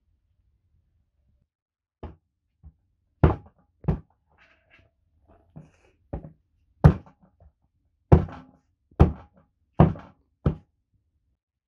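Small hatchet chopping through raw chicken and bone into a wooden cutting board: about a dozen sharp chops at an uneven pace.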